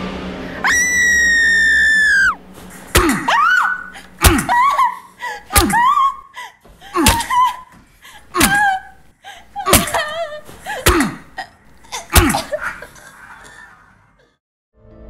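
A woman's long, high scream held for about a second and a half, falling slightly at its end, followed by a run of about eight sharp hits, roughly one every second and a half, each with a short cry.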